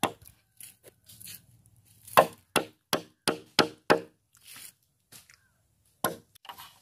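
Hard knocks of a wooden mallet striking bamboo poles: one at the start, a quick run of about six strikes a few seconds in, and two more near the end.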